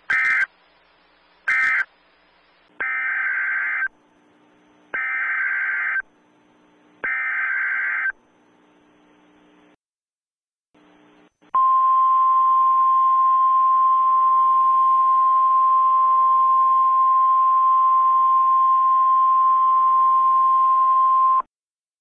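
Emergency Alert System data bursts: two short screeching bursts, then three longer ones of about a second each, with a faint static hiss between them. After a short silence comes a steady single-pitched alert tone of about ten seconds, which cuts off sharply.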